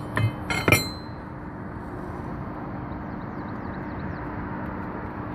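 Three or four sharp clinks of hard objects knocking together within the first second, then a steady background hum.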